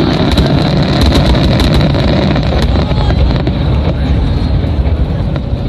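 Fireworks finale: many shells bursting close together, making a loud continuous rumble with sharp crackles and pops throughout.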